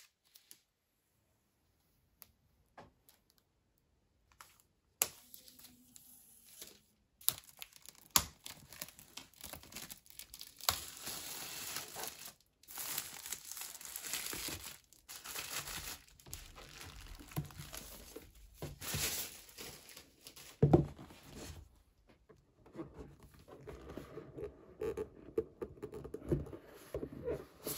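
Plastic shrink wrap on a MacBook Pro retail box being torn open at its pull tab and peeled off, crinkling and tearing, after a few nearly silent seconds. A single sharp knock about three-quarters of the way through, then softer rustling as the box is handled.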